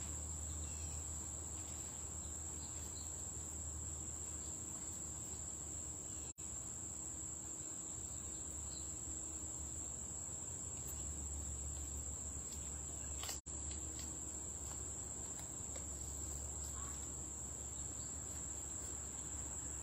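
Insects trilling steadily at a high pitch over a low background rumble, with the sound dropping out for an instant twice.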